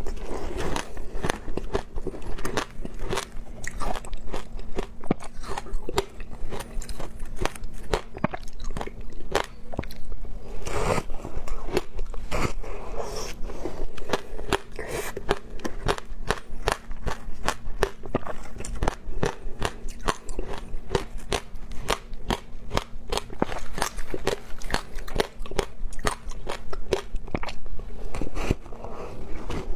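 Biting and chewing a frozen log of shaved ice coated in passion fruit pulp, close up: a dense run of crisp, irregular crunches and crackles as the ice breaks between the teeth. A faint steady hum sits underneath.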